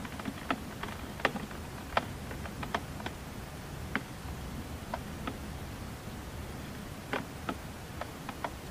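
Steady low hum with small sharp clicks and ticks scattered irregularly through it, roughly two a second.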